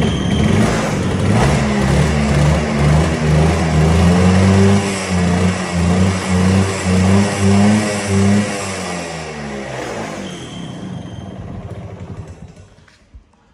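A 1969 Kawasaki B1's 125cc single-cylinder two-stroke engine running on its stand, its throttle blipped in a string of short revs. Near the end it falls back and stops. It is running on an extra-rich oil mix: the owner, fearing a faulty oil pump, added too much oil, which he says makes it run this hard.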